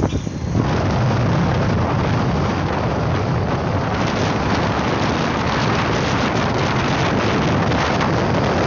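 Steady wind rush on the microphone of a camera riding in a moving vehicle, over the vehicle's running and road noise, with a brief dip just at the start.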